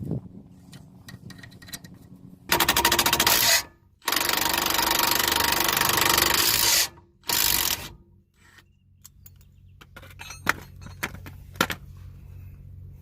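A power tool run in three bursts, about a second, about three seconds and half a second long, each with a fast, even rattle; faint clicks and knocks of tool work in between.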